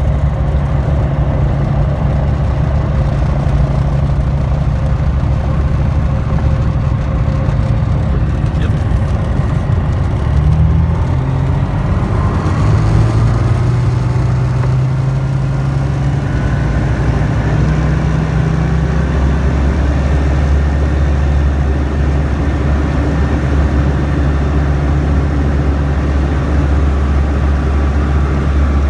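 Tecnam Sierra light aircraft's Rotax 912 flat-four engine and propeller running steadily; about ten seconds in the pitch rises over a few seconds as the power comes up, then holds steady at the higher note.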